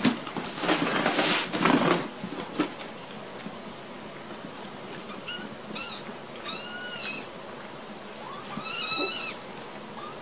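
Kittens mewing: three short, high-pitched mews in the second half, each rising and then falling in pitch. Before them, in the first two seconds, comes a stretch of rustling.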